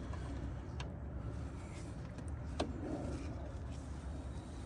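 Two short plastic clicks, about a second in and again past halfway, from the plastic trim clips and seal being handled, over a steady low hum.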